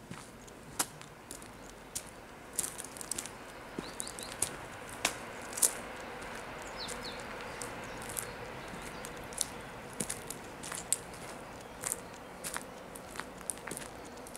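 Footsteps crunching on a gravel path: an uneven run of short, crisp crunches, some much sharper than others, over a faint outdoor hiss.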